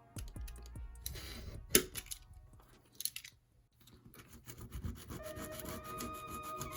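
Rubbing and scraping of hand work on a model car body, with a few sharp clicks. Background music with held notes comes in about five seconds in.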